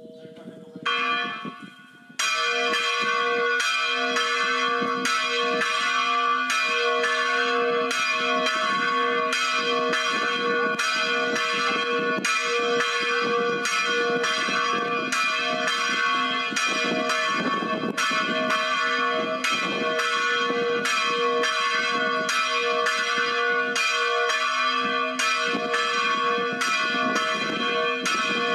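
Church bell ringing in quick, even strokes, with the bell's ringing hum carrying on between strikes; a few lighter strokes come first and the full ringing sets in about two seconds in.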